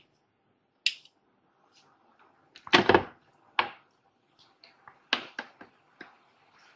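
Plastic blender jar full of tomato purée being gripped and taken off its motor base, with the motor stopped: a series of separate clicks and knocks, the loudest about three seconds in.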